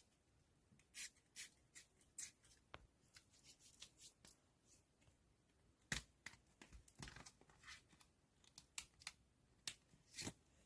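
Quiet, irregular crinkles, snaps and rustles of photocard packaging being handled by hand: plastic sleeves and tape, in short sharp bursts with the loudest snaps about six and ten seconds in.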